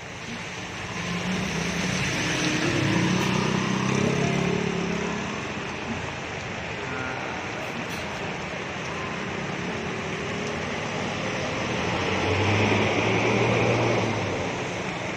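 A large coach bus's diesel engine as the bus drives slowly past close by, swelling about three seconds in and again near the end, over the steady hiss of heavy rain.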